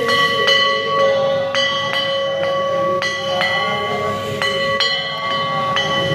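Metal bell struck repeatedly during an aarti, about two strikes a second, each strike ringing on so that the tones hold steady between strikes.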